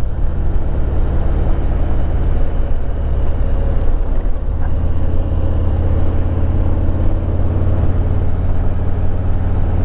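Harley-Davidson Road Glide Limited's V-twin engine running steadily under way, under a constant rush of wind and road noise.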